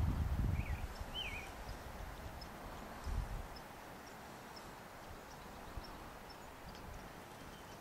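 Low thumps and rumble in the first second and again about three seconds in, over a steady outdoor background, with two short, wavering bird whistles about a second in.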